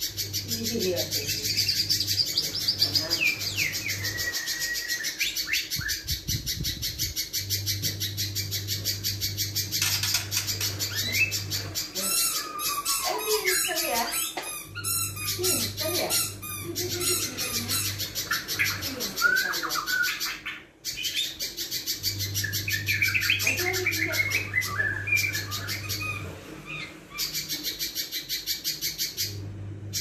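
Caged little spiderhunter calling on and on: a fast, unbroken stream of sharp, harsh notes mixed with short chirps and pitch glides, busiest around the middle.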